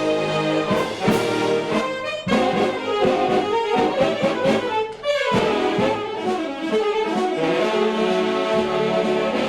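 Mummers string band music, with saxophones carrying the tune over a busy beat. A quick downward glide about halfway through is followed by a brief dip in loudness.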